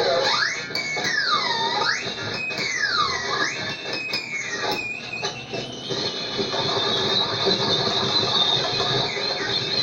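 Music of sliding, swooping tones that dip and rise again about once a second, in the manner of an effects-laden guitar or theremin, giving way about halfway through to a hissing, noisy wash.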